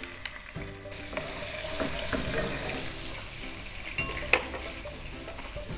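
Ginger-garlic paste sizzling as it fries in hot oil in a wok, with a few sharp clicks.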